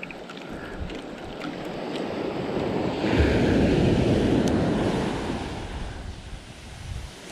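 Small surf washing up a sandy beach, swelling about three seconds in and then fading away, with wind on the microphone.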